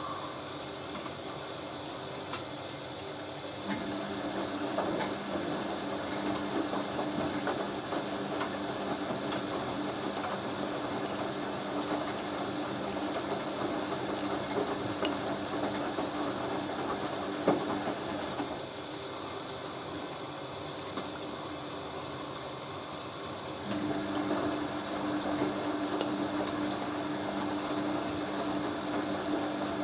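Hoover A3060 Electronic 1100 washing machine on its dilution rinse: the motor turns the drum with a steady hum over a constant hiss, stops for about five seconds about two-thirds of the way through, then starts turning again.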